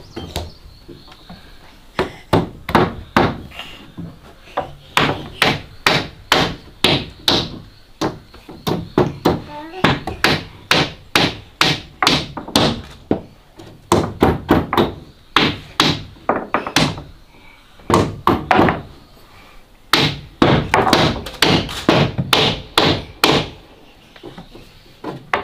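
Hammer blows on wood, about three a second, in runs of several strikes with short pauses between runs.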